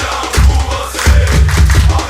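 Music: a football supporters' chant sung by a group over drums, with a heavy deep bass that drops out for moments and comes back in.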